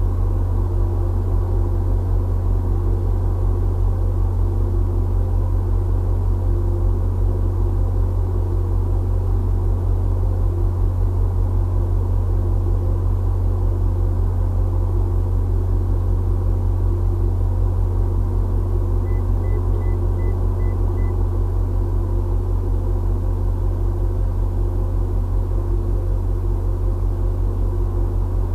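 Steady low rumble of an idling engine with a fast, even throb, with a short run of about five faint high beeps about two-thirds of the way through.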